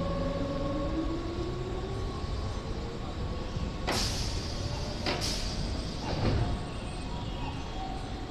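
Doors of a standing Keihan 5000-series electric train being closed for departure: three sharp knocks with a hiss of air about four, five and six seconds in, over the steady hum of the waiting train. A faint tone rises in pitch over the first few seconds.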